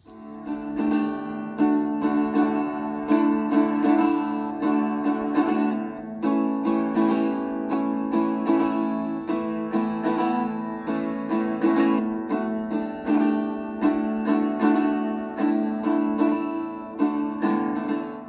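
Martin Backpacker travel guitar strummed in a steady rhythm of chords.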